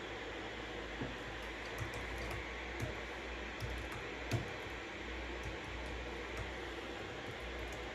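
Steady white-noise hiss with a few scattered, irregular computer keyboard keystrokes, the loudest about four seconds in.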